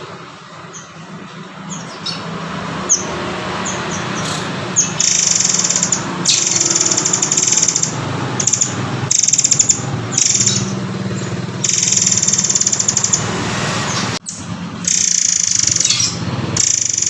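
Murai air (forktail) song from a training recording: repeated high-pitched rattling trills, each lasting a second or two, with short sharp chirps between them, over a steady low background rush. The sound drops out briefly a little after fourteen seconds.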